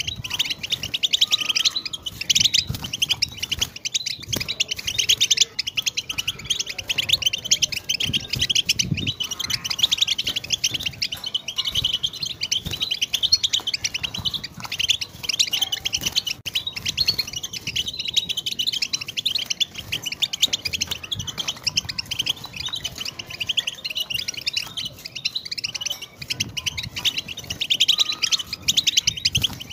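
European goldfinch song: a fast, unbroken stream of high twittering and trills.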